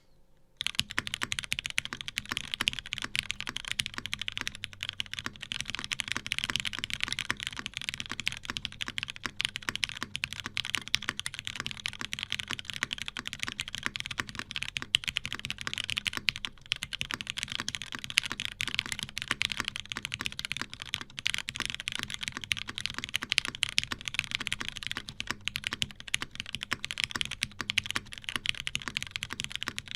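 Continuous fast typing on a Salamander custom mechanical keyboard with Krytox 205g0-lubed Cherry MX Black linear switches, a PBT plate and GMK keycaps: a dense stream of key strokes that starts about half a second in.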